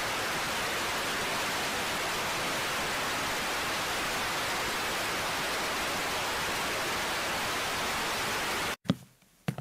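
Steady static hiss, like a detuned TV, that cuts off abruptly near the end. A couple of sharp knocks follow.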